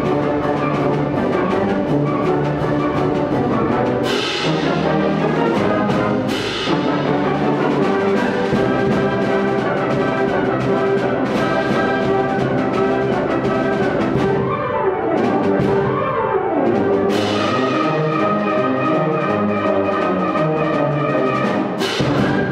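High school concert band playing loud, sustained full-ensemble chords led by the brass. Cymbal crashes come about 4 and 6 seconds in, again about three-quarters through and near the end, and two falling runs sweep down shortly after the middle.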